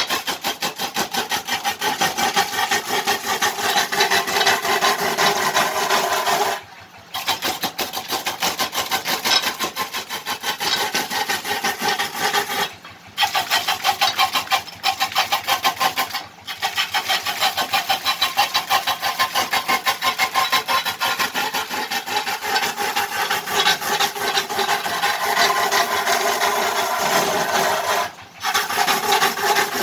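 Wood lathe turning a fruit-wood kendang siblon drum body, the cutting tool scraping steadily against the spinning wood. The cutting breaks off briefly four times, about 7, 13, 16 and 28 seconds in, then resumes.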